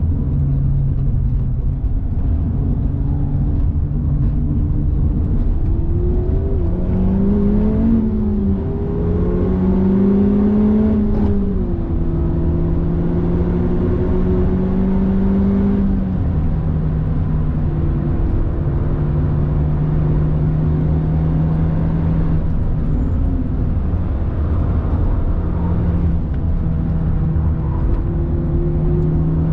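In-cabin sound of a Honda Civic Type R FK8's turbocharged 2.0-litre four-cylinder engine driving hard at speed. The engine note climbs and falls back twice as it revs and shifts, then holds mostly steady with a few small steps in pitch, over a constant low rumble of road and tyre noise.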